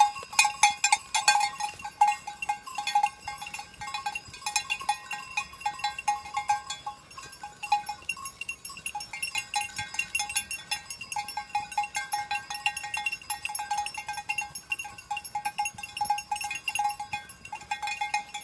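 Bells worn by a herd of goats clanking irregularly as the animals walk, a steady jangle of many strikes with a couple of brief lulls.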